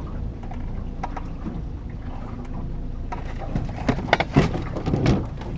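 A steady low rumble of wind and the boat. From about three and a half seconds in comes a cluster of knocks and clatter on the boat, loudest about four and a half seconds in, as a man gets up and moves toward a fishing rod.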